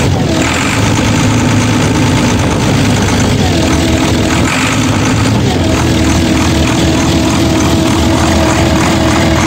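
Volvo TD61ACE six-cylinder turbo diesel of an Åkerman H7Mc wheeled excavator running steadily, still cold after its cold start. A higher tone slides up and then holds twice, about three and a half and five and a half seconds in.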